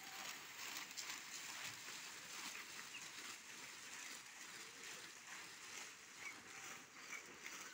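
Quiet outdoor ambience: a steady faint hiss with a few short, high bird chirps scattered through the second half.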